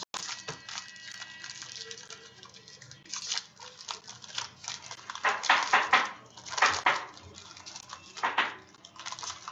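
Rustling and crinkling of trading card packs and cards being handled, in short scratchy bursts, loudest about five to seven seconds in and again near eight seconds.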